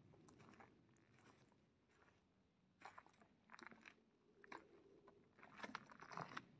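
Faint footsteps crunching on a dry forest trail of fallen leaves, twigs and loose stones, with irregular crackles that grow louder and more frequent from about three seconds in.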